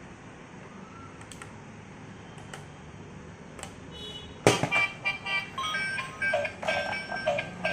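A few small handling clicks, then about halfway through the transparent gear toy car is switched on. Its little speaker starts a bright electronic tune of short beeping notes over a repeating pulse.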